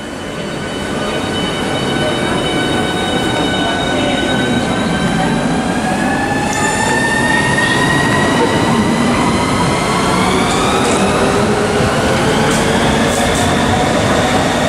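Southeastern class 395 high-speed electric train pulling away from the platform. The whine of its traction motors rises steadily in pitch as it gathers speed, over the rumble of the train, growing louder over the first few seconds.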